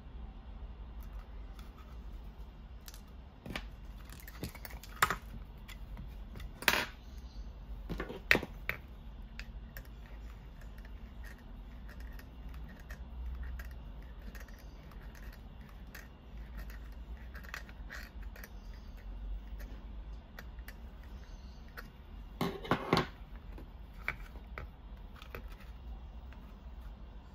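Scattered clicks, taps and light rattles of small parts being handled and fitted into a plastic handpiece housing, with a few sharper clicks a few seconds in and a short cluster of them later, over a low steady hum.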